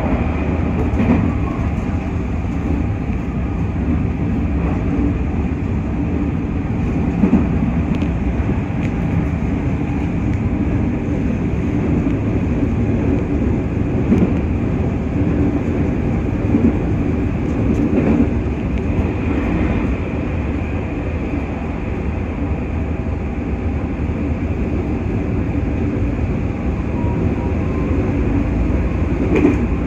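Running noise of a JR West 221 series electric train heard from inside the car: a steady rumble of wheels on rail, with a few sharp clicks scattered through it.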